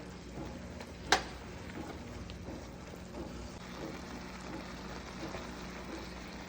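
Chicken pieces sizzling in a hot pan, a steady hiss with small crackles, over a low hum. One sharp click about a second in.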